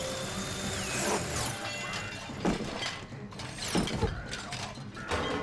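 Cartoon sound effects of the Chubbchubbs' toothy shredding attack: a dense mechanical grinding and clattering, like a kitchen food processor, with two sharp crashes about two and a half and four seconds in.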